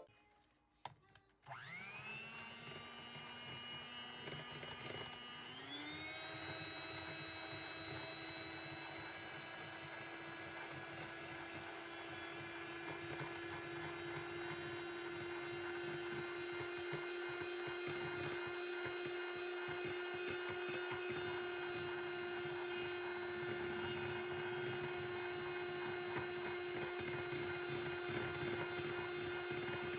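Electric hand mixer motor starting up and whipping egg whites for meringue. It spins up with a rising whine, steps up to a higher speed about five seconds in, then runs at a steady pitch.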